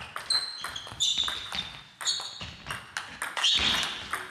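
Table tennis rally: the ball clicking off bats and table in a quick back-and-forth, with short squeaks of shoes on the sports-hall floor.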